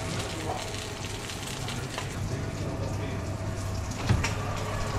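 Sausages sizzling in a frying pan on a gas burner: a steady frying hiss and crackle. About four seconds in there is a short knock as the oven door is opened.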